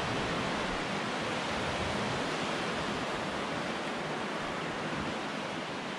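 Steady rushing of sea surf washing on the beach, an even continuous noise with no single wave standing out.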